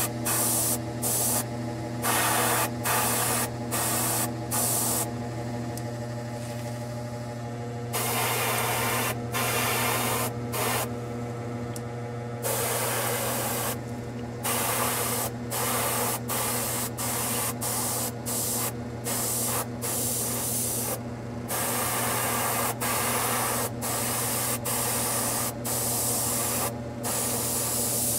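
Gravity-feed airbrush spraying thin acrylic paint in light coats, a hiss that starts and stops as the trigger is worked, mostly in short bursts about a second apart with a few longer passes. A steady low hum runs underneath.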